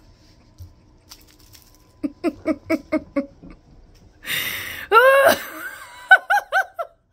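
A person laughing hard. A run of about six quick chuckles is followed by a wheezing in-breath, then a loud squeal about five seconds in and a burst of high-pitched giggles.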